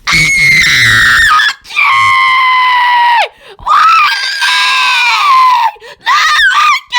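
A person screaming: three long, high-pitched held screams with short breaks between them, then shorter wavering cries near the end.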